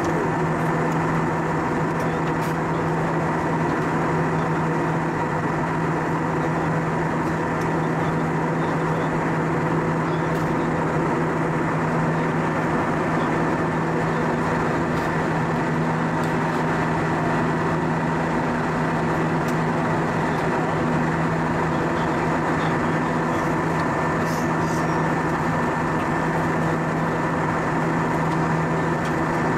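Steady cabin noise of an Airbus A320-232 in flight, heard from a window seat beside the wing: an even rushing of air with a constant low hum and a couple of fixed higher tones from its IAE V2500 turbofan engines.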